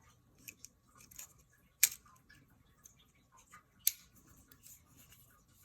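Small parts of a new weapon light and its accessories being handled, with scattered light ticks and two sharp clicks about two seconds apart.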